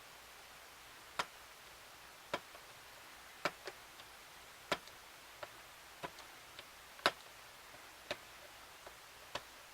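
Fingernail clicking and picking against the hard plastic of a label maker's screen, trying to lift its protective film: sharp irregular clicks about once a second, with fainter ticks between.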